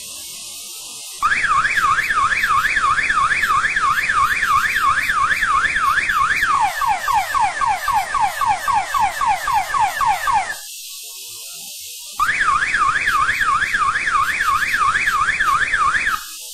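Homemade PIC18F4455 house alarm's electronic siren sounding: a fast up-and-down warble at about four sweeps a second, switching after about five seconds to repeated falling sweeps. It stops for about a second and a half, then the warble starts again.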